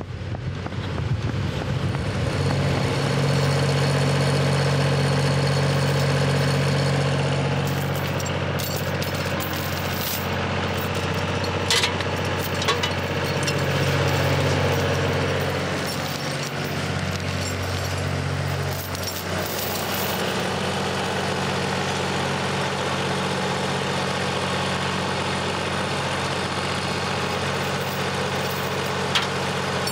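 Tractor engine running steadily. It is louder and shifting in pitch in the first half, then settles into an even idle. A few brief metallic clinks of a tow chain being handled come in over it.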